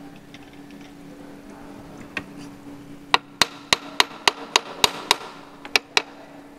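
A hammer tapping a steel workpiece down into a milling-machine vise to seat it flat before the vise is tightened: quick sharp taps, about four a second, starting about halfway in, with a short pause near the end. A steady low hum runs underneath.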